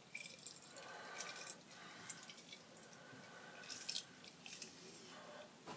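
Faint squishing and dripping as an orange is squeezed by hand, with small scattered clicks.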